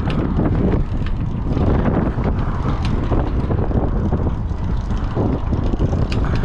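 Wind buffeting the microphone of a camera on a moving bicycle: a steady, heavy rumble with no clear engine note.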